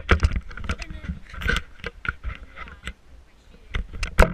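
Irregular clicks and rustling, like things being handled, with one sharp bang about four seconds in.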